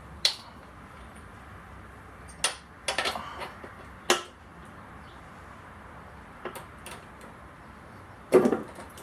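Scattered clicks and knocks of hand tools working on a small Briggs & Stratton mower engine while the spark plug is taken off: a quick cluster about three seconds in and the loudest knock near the end.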